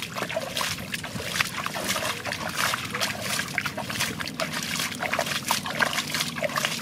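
Hands splashing, scooping and flinging muddy water in a shallow puddle: a continuous run of quick splashes and splatters as the water is thrown out to strand the fish.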